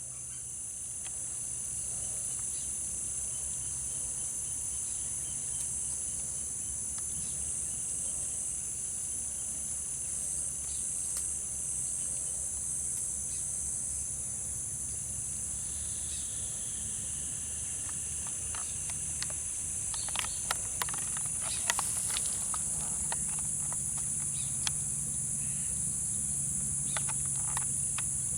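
Steady high-pitched chorus of insects, with a few sharp clicks and rustles about three-quarters of the way through.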